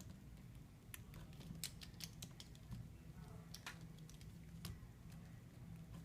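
Faint, irregular small clicks and ticks of hand tools handling the parts of an iPhone 6s display assembly as it is taken apart, over a low steady hum.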